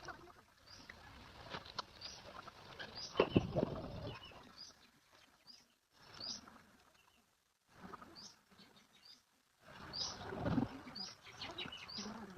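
Small birds chirping in short, high, rising calls, mixed with bursts of rustling and fluttering. The sound is broken by a few brief gaps.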